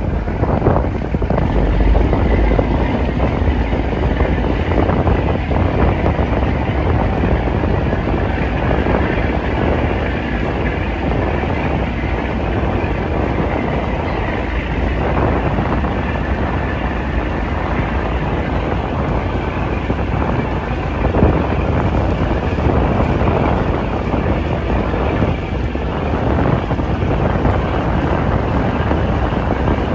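Steady wind rushing over the microphone, with a boat's engine running underneath as it travels along the river.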